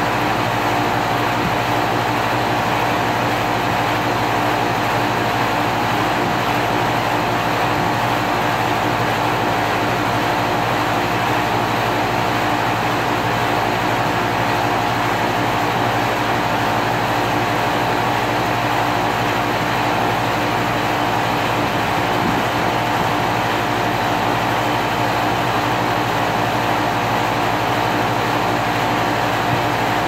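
2001 5-ton Carrier central air conditioner's outdoor unit running steadily: an even hum with a steady higher tone over a rushing noise, unchanging throughout.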